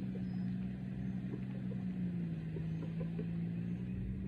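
Motorboat engine running steadily at an easy, unhurried pace, a low even hum whose pitch dips slightly about two seconds in and comes back up near the end.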